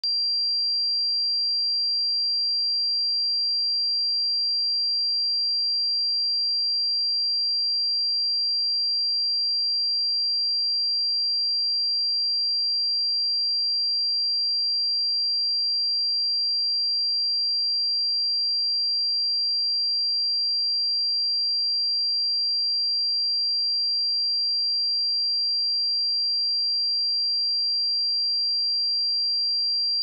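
A pure 4738 Hz sine-wave test tone: one steady high tone held at a constant level, with nothing else in it.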